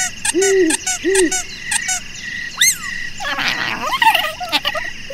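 Animal-call sound effects: two low hooting calls in the first second or so over a fast, regular clicking chirp and a steady high tone, then a short whistle that rises and falls about halfway through, followed by a jumble of warbling cartoon noises.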